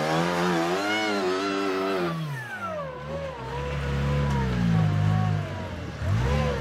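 Rock crawler buggy's engine revving in repeated throttle surges while climbing a steep rock face, its pitch rising and falling; the revs drop about two seconds in, run lower and steadier, then climb sharply again near the end.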